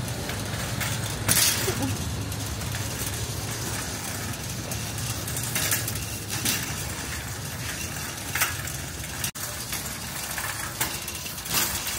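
Steady low background rumble with scattered short clinks and rattles, five or so over the stretch.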